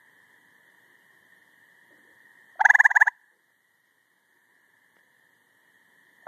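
Gray treefrog giving a loud, short pulsed trill about two and a half seconds in, and a second trill starting right at the end. A faint steady trilling of more distant frogs runs underneath.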